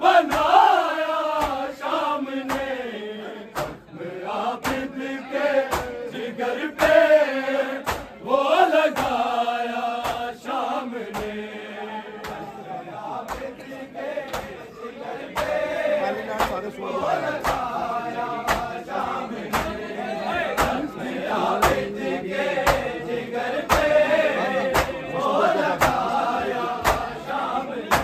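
Men's chorus chanting a noha, a Shia lament, over a steady beat of sharp hand strikes from chest-beating (matam).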